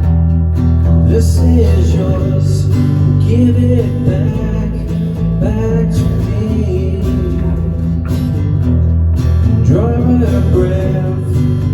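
Acoustic rock band playing an instrumental passage: strummed acoustic guitar over steady bass notes.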